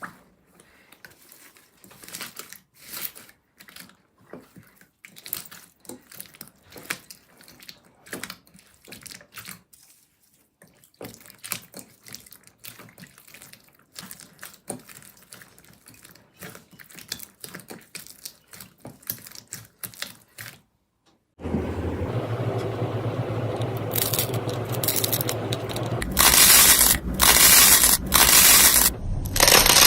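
Slime being squeezed and poked by hand, giving scattered wet, sticky clicks and pops. About two-thirds of the way through it cuts to a much louder, dense crackling and crunching of slime being pressed.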